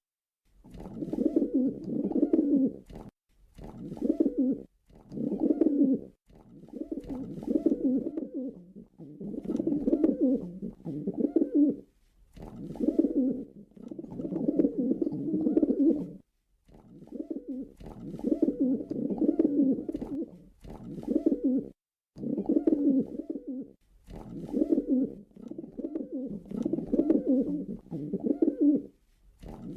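Male pigeon cooing over and over, low throaty coos in phrases of one to two seconds with short pauses between them.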